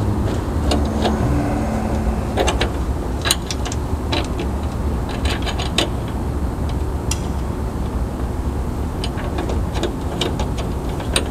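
Irregular sharp metal clicks and taps of bolts, nuts and washers being fitted and worked by hand on a UTV door's rear window-track bracket, over a steady low rumble.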